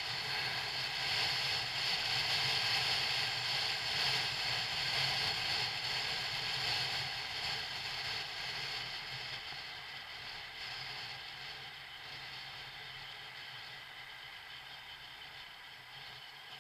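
Motorcycle riding noise picked up by a bike-mounted camera: a steady rush of wind over the microphone with a low engine hum underneath, fading in the second half.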